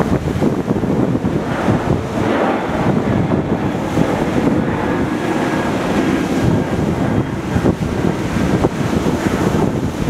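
Sea waves breaking and washing over a black lava-rock shore, a continuous rush of surf that swells and eases, louder about two seconds in. Wind buffets the microphone throughout.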